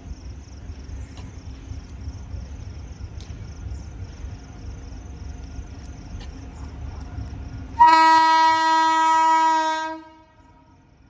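WAP-5 electric locomotive's horn sounding one long, loud blast of about two seconds, beginning near the end, as the train approaches. Before it there is a low rumble with insects chirping in a fast, even rhythm.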